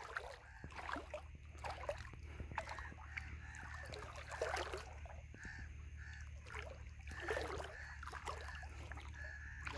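Water lapping and splashing against a moving boat's hull in irregular small splashes, over a steady low hum, with a few faint short calls in the background.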